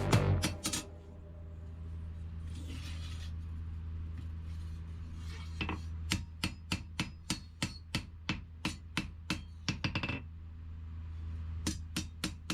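Hammer blows ringing on steel at an anvil, about three a second, in two runs with a short pause between them, over a steady low hum.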